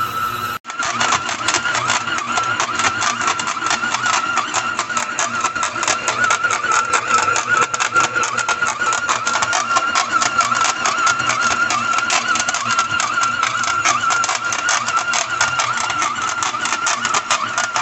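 Electric stand mixer running: a steady motor whine with a rapid, even rattle from the gearing.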